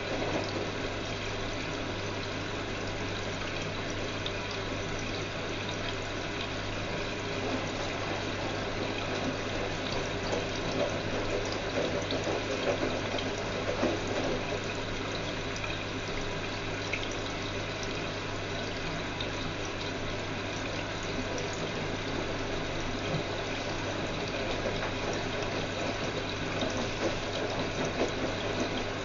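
Whirlpool washing machine running a cycle: water rushing and sloshing inside it over a steady low hum.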